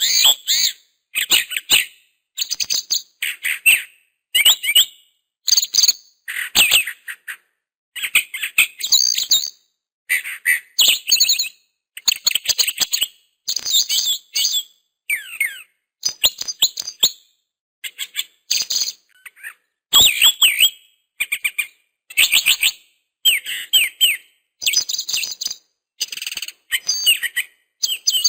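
Songbirds chirping in quick, high trills and short gliding notes, in brief bursts about once a second with silent gaps between them.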